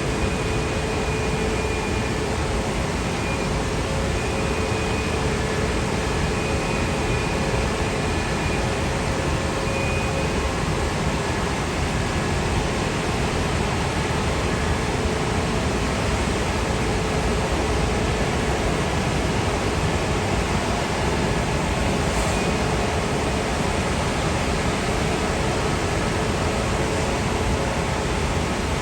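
Jet aircraft engines running: a steady rushing noise with faint whining tones held throughout.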